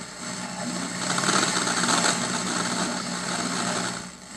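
Static hiss with a steady low buzz from an analog television's speaker, tuned to a weak UHF channel whose signal fades in and out. The noise dips briefly just before the end.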